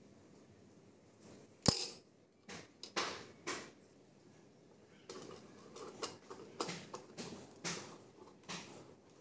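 Small metal clock parts being handled and worked: one sharp knock a couple of seconds in, a few light clicks, then a run of short scraping and clicking strokes in the second half.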